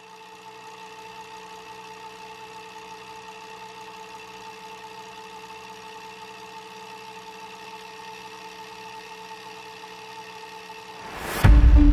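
Steady electrical hum with a high buzzing tone, a retro VHS tape-playback sound effect under the title cards. A short whoosh near the end leads straight into loud music.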